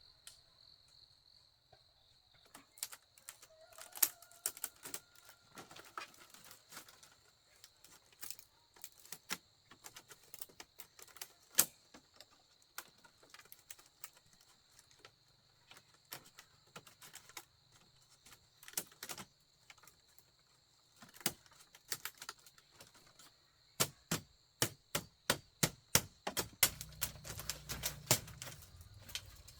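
Sharp, irregular taps and knocks of hand-tool work on bamboo, coming quicker and more evenly near the end, with a faint steady high-pitched whine underneath.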